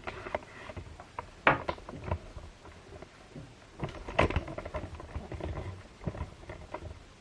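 Irregular clicks, taps and knocks of a small plastic mini wireless keyboard being handled and set in position, with a few louder knocks about one and a half seconds and four seconds in.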